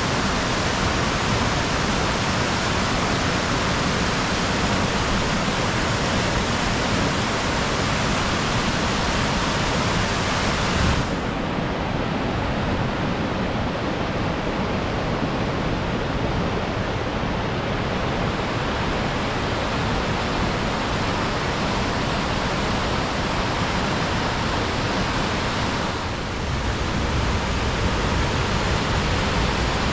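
Steady rush of white-water river rapids tumbling over bedrock. About eleven seconds in it turns abruptly duller, with less hiss, and a few seconds before the end it becomes fuller, with more low rumble.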